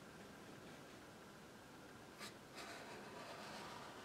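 Quiet room tone, then faint paintbrush strokes on canvas: one short brush stroke a little over two seconds in, then a soft, steady rubbing.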